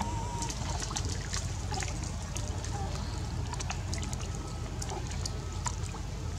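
Shallow water splashing and trickling as young macaques wade and paddle through a muddy pond: many small, irregular splashes and drips over a steady low rumble.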